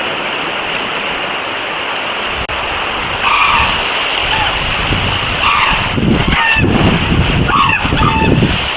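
Outdoor ambience: a steady rushing hiss with gusts of wind rumble on the microphone, and four or five short bird calls in the second half.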